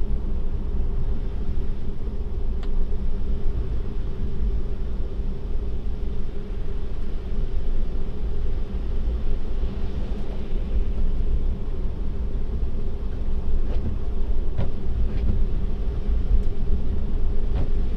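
Steady low road and tyre rumble of a Tesla driving on a snowy road, heard inside the cabin, with a steady hum and a few faint clicks.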